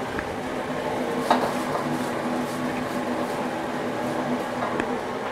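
Steady rush of a commercial wok-range burner and kitchen extraction, with a light metal clank of the wok about a second in. Faint scraping follows as the hot wok is wiped out with a cloth.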